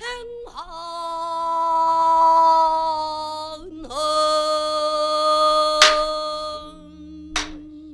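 A female pansori singer holds two long, wavering sung notes, with sharp strokes on a buk barrel drum twice near the end.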